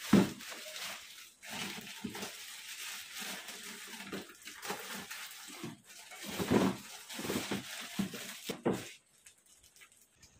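A plastic bag rustling and crinkling as leftover food is tipped and scraped into it from plastic food boxes, with a sharp knock at the start and small knocks of handling. The rustling stops about nine seconds in.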